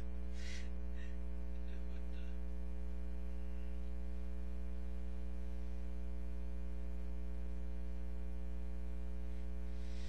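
Steady electrical mains hum, a buzzy drone with many evenly spaced overtones, unchanging throughout. A few faint short scratchy sounds come in the first two seconds.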